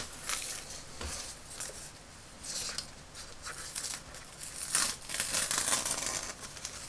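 A paper pattern, stuck on with double-sided tape, being peeled off a strip of plastic fake-leather fabric. The paper rustles in several short spells, busier in the second half, after a sharp click at the very start.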